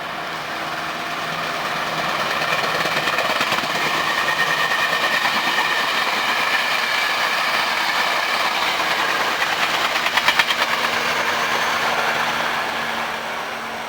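Hankyu 8300-series eight-car electric train passing at speed, its wheels clattering rhythmically on the rails over the running and motor noise. The sound builds over the first couple of seconds, holds steady, has a quick run of sharper clacks about ten seconds in, and eases off near the end.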